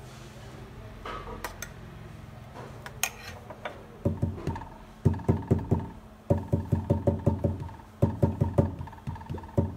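A glass jar of mousse knocked down repeatedly on a stone countertop to settle the filling: runs of quick dull thuds, about five a second, starting about four seconds in. Before that come a few light spoon clicks.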